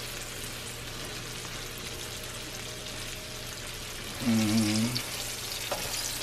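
Breaded fish fillets frying in hot oil in a skillet, a steady sizzle. About four seconds in, a person hums briefly.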